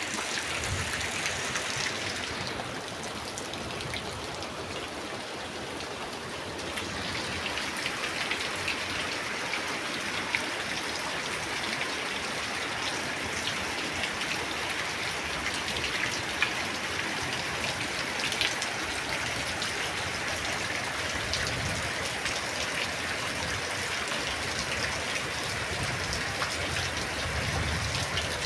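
Light, steady drizzle: a continuous hiss of rain with many small drops ticking on surfaces. About two seconds in the high part of the hiss thins for a few seconds, then fills back in.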